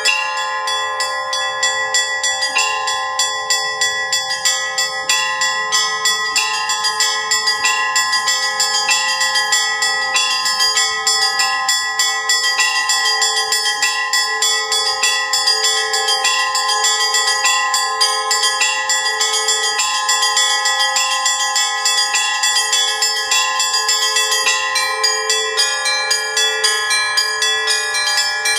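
Russian Orthodox church bells rung in the Russian style: a fast, steady rhythm of strikes on small high bells, a few per second, over the sustained ringing of larger bells.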